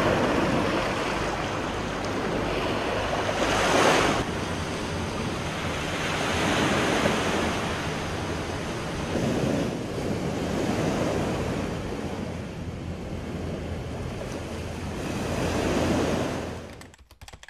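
Sea waves washing onto a pebbly beach, rising and falling in slow surges, cutting off abruptly near the end.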